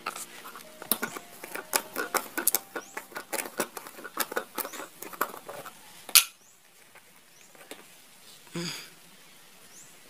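Small plastic jar of shrimp-feed pellets being worked open by hand: a quick run of plastic clicks and crackles, then one sharp knock about six seconds in, most likely the lid coming free.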